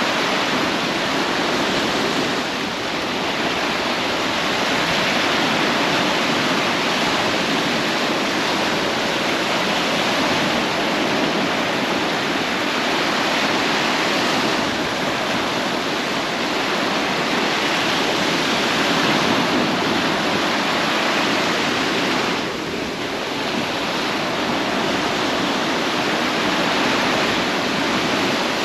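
Ocean surf washing on a beach: a steady rush of water noise that swells and eases slightly, dipping briefly twice.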